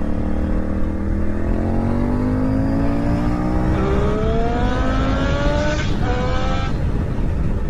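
Honda XL1000 Varadero's V-twin with an aftermarket GPR exhaust accelerating hard, its pitch climbing steadily for about six seconds. Near the end there is a brief dip at an upshift, then the throttle closes. Wind rushes over the helmet microphone throughout.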